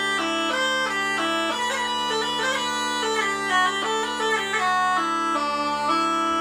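Mouth-blown bagpipe with a leather bag playing a melody over a steady drone. The chanter notes change quickly, then settle on a long held note near the end.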